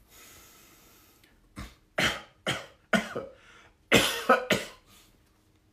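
A man coughing in two fits of three or four sharp coughs each, the first about two seconds in and the second about four seconds in.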